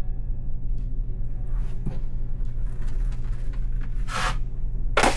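A drywall knife scraping and spreading joint compound over a taped patch, with two strong strokes near the end, over a steady low hum.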